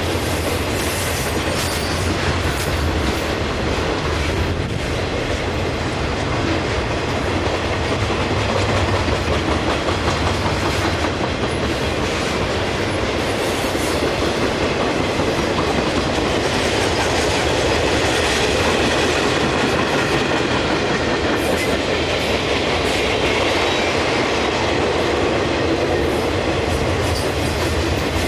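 Cars of a CSX military freight train rolling steadily past, with continuous wheel-on-rail noise.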